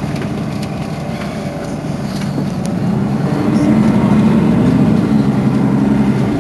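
Mercedes-Benz Citaro facelift city bus's engine idling while the bus stands still. The low hum swells louder about three seconds in.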